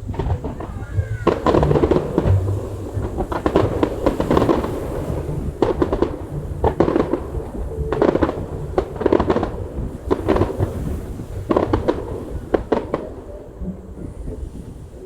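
Fireworks bursting and crackling in rapid clusters, one bunch of bangs after another every second or so, thinning out near the end.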